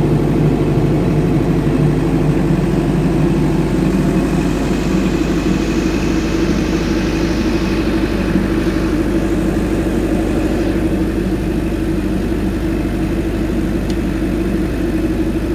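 16 kVA diesel generator set with a Stamford alternator, enclosed in a soundproof canopy, running steadily at constant speed on test.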